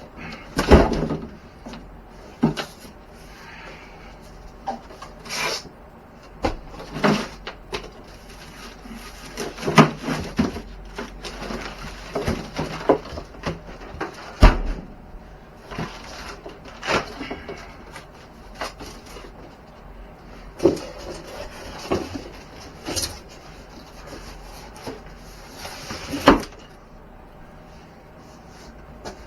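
Handling noises from unboxing an RC truck: irregular knocks, thuds and clicks with stretches of rustling and scraping as the cardboard box and packaging are moved and opened. The loudest knocks fall about a second in, near the middle and a little before the end.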